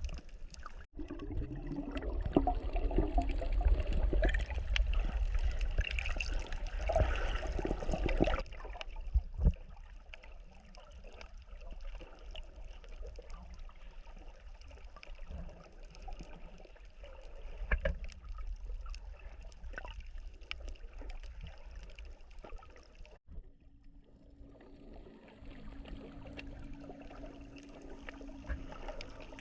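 Water trickling and sloshing, with abrupt changes where the scene cuts, and a steady low hum in the last few seconds.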